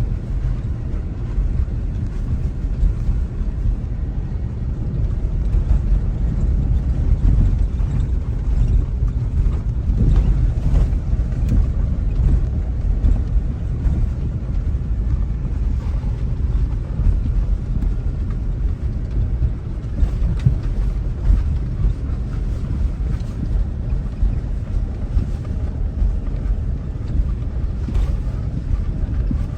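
Steady low rumble of a car driving along a road, engine and tyre noise heard from inside the moving car, with some wind on the microphone.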